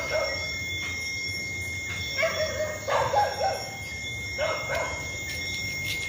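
A dog barking in short bursts, five or six times, over a steady high-pitched tone.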